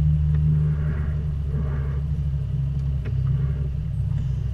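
Bass boat's outboard motor idling, a steady low rumble as the boat creeps along at no-wake speed.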